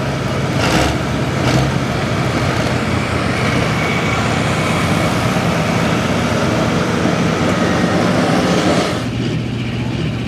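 Hot Farm class diesel pulling tractor running at full throttle under load down the track, a loud steady engine and turbo noise that drops off sharply about nine seconds in.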